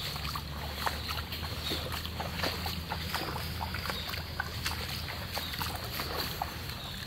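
Raindrops plinking irregularly into shallow floodwater on pavement, with a steady low rumble underneath.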